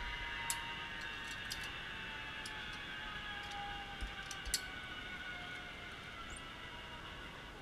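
Sharp metallic clicks of zipline harness gear, carabiners and trolley being handled and clipped onto the steel cable, a handful spread over the first half. Beneath them runs a faint high whine that slowly falls in pitch and fades.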